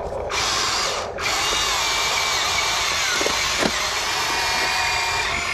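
Huina RC excavator's electric motors and gearboxes whining steadily as the boom and arm move. The whine cuts out briefly at the start and again about a second in.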